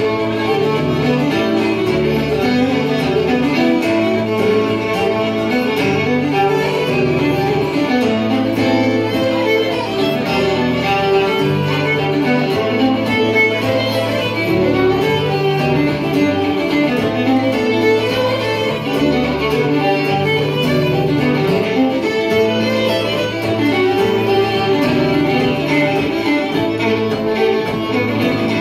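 Two fiddles playing a tune together over acoustic guitar accompaniment, with the guitar's bass notes changing every second or two underneath.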